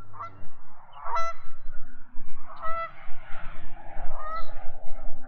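Geese honking: a few single honks spaced about a second and a half apart.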